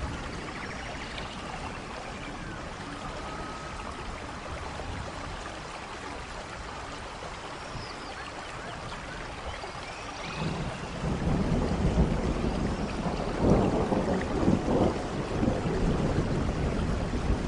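Steady rain falling. About ten seconds in, a deep rumble of thunder rolls in and swells in uneven surges.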